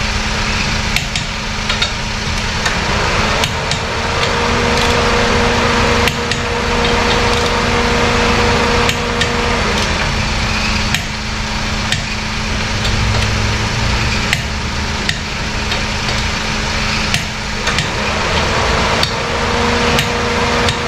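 Hand wrench clicking and knocking now and then as the lug nuts on a car's front wheel are tightened, over a steady mechanical hum with a higher tone that comes in and drops out twice.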